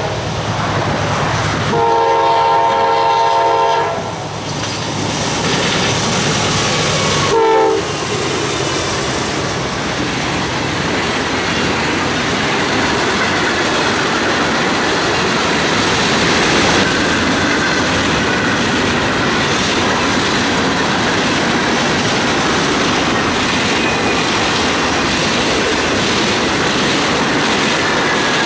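Freight train locomotive horn: a long blast about two seconds in and a short one at about seven seconds. Then the train's cars run steadily past on the rails.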